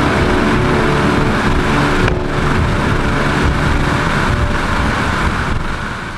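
Offshore racing powerboat running flat out, its engines heard from onboard through heavy wind and water rush, fading out near the end.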